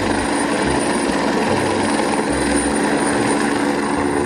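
Helicopter in flight, its rotor and turbine running steadily, with a low rotor beat under a thin, steady high whine.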